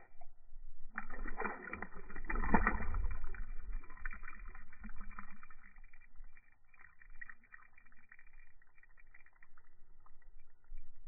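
Water splashing as a released smallmouth bass kicks free at the surface and swims off, loudest about two seconds in, then fading into small scattered splashes and drips.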